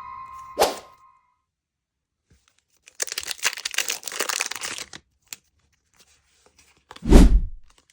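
A foil Pokémon booster pack being torn open, with about two seconds of crinkly tearing, and then a dull thump near the end. It opens on the last note of the intro music dying away with a short whoosh.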